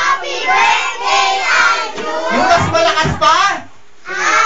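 Children singing with high voices on drawn-out notes, with a brief pause near the end.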